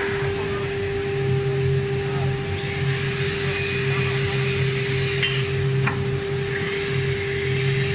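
ATC CNC router running with its spindle not cutting: a steady whine over a low hum that pulses on and off, with a couple of faint clicks about five to six seconds in.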